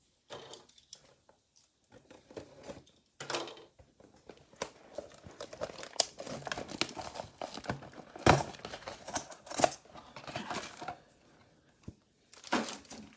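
Cardboard box and foil trading-card packs being torn open and handled: irregular crinkling and ripping of wrapper and packaging, with the sharpest tears a little past the middle.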